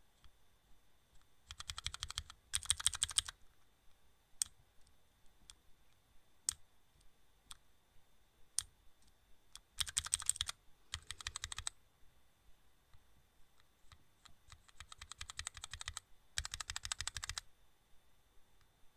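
Rapid clicking in six short bursts of about a second each, two close together near the start, two about ten seconds in and two near the end, with single clicks between them. A faint steady high whine runs underneath.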